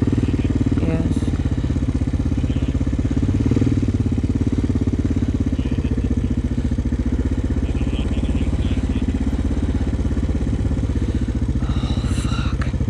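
Honda 400X ATV's single-cylinder four-stroke engine running steadily at low revs as the quad eases slowly out over a berm, with no hard revving.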